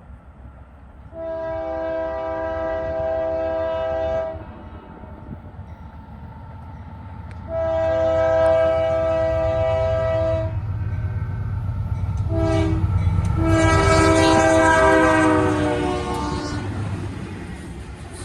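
Diesel locomotive's multi-chime air horn sounding the grade-crossing signal: two long blasts, a short one, then a final long one whose pitch sags as the train draws by. The low rumble of the train grows underneath.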